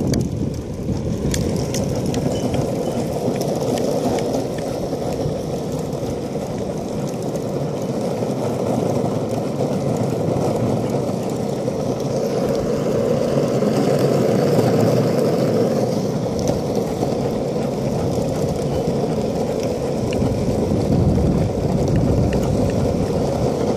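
Skateboard wheels rolling steadily over rough asphalt.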